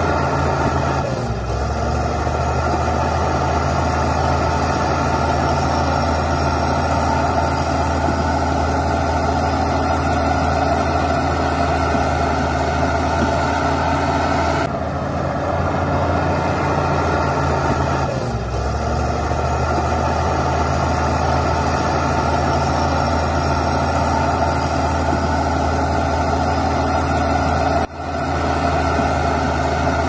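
Heavy diesel engine of earthmoving machinery running steadily, its note shifting briefly about a second in and again past halfway. The sound drops out for a moment near the end.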